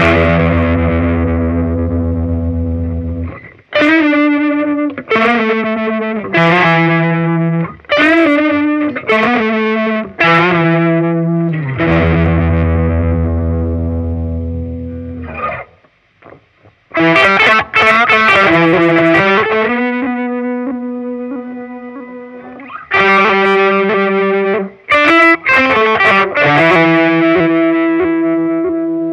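Electric guitar played through an EarthQuaker Devices Crimson Drive germanium overdrive and an Arpanoid arpeggiator pedal, both switched on. Overdriven chords ring out while the notes step up and down in pitch. The playing stops briefly about sixteen seconds in, then starts again.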